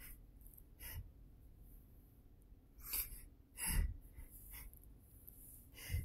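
A man's short sniffs and breaths through his nose and mouth, about five in all, the loudest just past halfway; his allergies are flaring.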